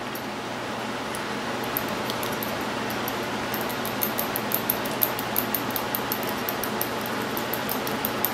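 Steady fan noise, with quick light clicks about three a second from the middle on as paint is mixed in a small metal cup.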